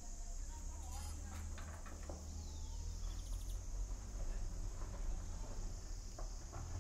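Steady high-pitched drone of an insect chorus, with a low rumble underneath.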